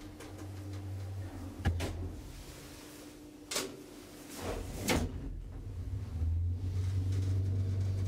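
Kone traction lift: the doors shut and the car knocks and clunks three times, then the machine's low hum swells about six seconds in as the car starts to travel.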